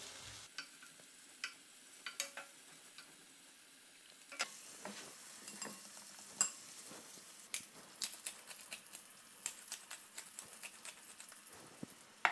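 Guanciale frying in a pan, a quiet steady sizzle. Over it come a few knocks of a wooden spoon in the pan at first, then quick clicks of a fork beating eggs and grated pecorino in a glass bowl, coming thicker from about four seconds in.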